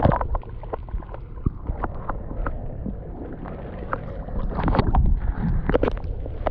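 River water sloshing and splashing around hands and a brown trout held under the surface as it is released, with many short sharp splashes that grow busier and louder over the last couple of seconds.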